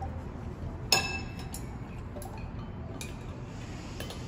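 Eating utensil clinking against a ceramic bowl: one sharp, ringing clink about a second in, then two fainter taps later, over a low steady room hum.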